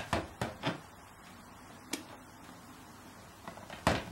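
Light clicks and knocks of plastic parts handled against each other as a DJI Phantom quadcopter's propellers are fitted by hand: three quick clicks at the start, a single one about two seconds in, and a cluster near the end, the loudest of them just before it ends.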